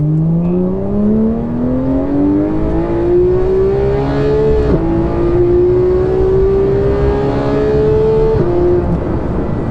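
Porsche 991.1 GT3's naturally aspirated flat-six with a GMG exhaust, accelerating hard: the revs climb steadily for about four and a half seconds, drop with an upshift, climb again, and drop with a second upshift near the end.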